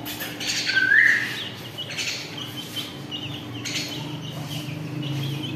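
Caged pet birds, parrots among them, chirping and calling over one another, with a louder rising call about a second in.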